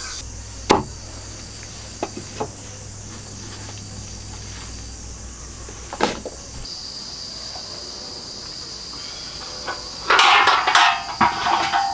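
A steady, high-pitched insect buzz, like crickets, with a few sharp knocks of a cleaver and jackfruit pieces on a wooden chopping block. About ten seconds in, a heavy black iron pot clatters and rings as it is set onto the metal grate of a mud stove.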